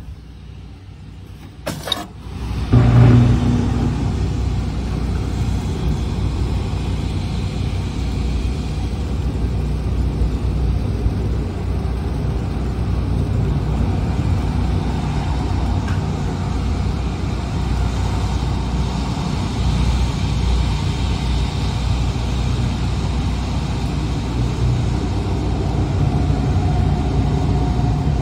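Turbine backup generators running with a steady low rumble and hiss. About two seconds in there is a sharp click, and about three seconds in a short, loud buzzing burst, the loudest moment.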